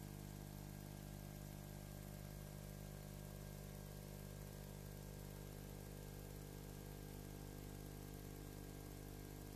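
Faint, steady electrical hum with many even overtones over a constant hiss, unchanging throughout.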